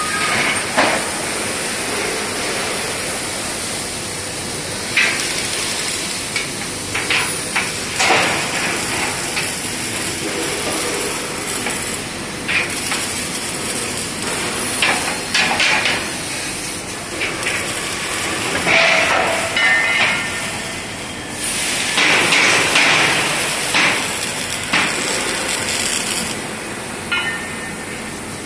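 Steady din of a steel-fabrication workshop, broken by scattered sharp metal clanks and knocks, like steel parts and hammers striking steel beams.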